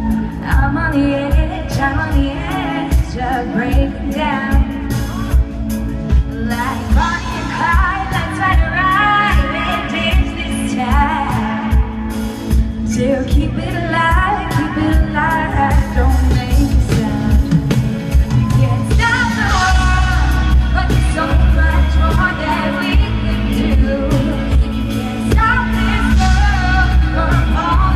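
A live pop band playing loud, with drums and heavy bass, and a voice singing over it.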